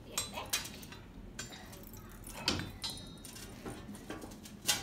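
Iron blacksmith's tongs clinking against the coals and metal of a coal forge: a handful of sharp clinks and scrapes, the loudest near the end.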